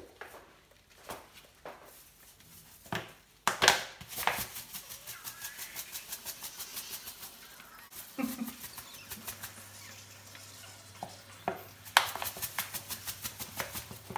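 Salt being shaken from a plastic salt container over live snails in a stainless steel sink: a rapid, even rattling of shaken salt with grains pattering onto the shells and steel, in two spells. A few sharp knocks come before it, the loudest about three and a half seconds in.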